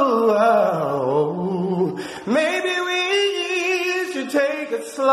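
A man singing unaccompanied: a long wordless run that slides down in pitch with heavy vibrato, a short break about two seconds in, then the voice swoops back up into held, wavering notes.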